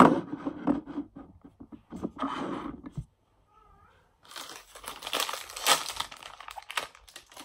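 Plastic toy packaging being handled: a sharp knock right at the start, bursts of rustling, then about three seconds of dense crinkling from about four seconds in.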